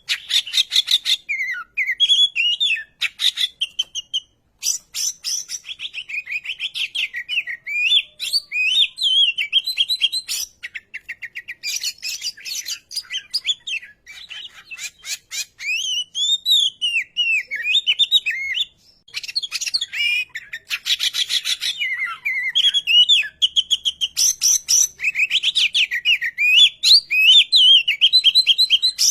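Oriental magpie-robin singing a long, varied song: quick rising and falling whistled phrases alternating with fast, harsh chattering rattles. The song breaks off briefly about two-thirds of the way through.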